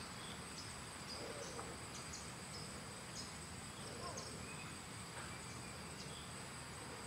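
Faint outdoor insect chorus: a steady high-pitched buzz with scattered short, high chirps.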